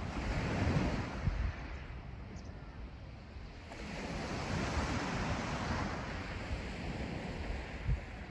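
Sea waves washing onto the shore, surging about a second in and again from about four seconds, with wind rumbling on the microphone.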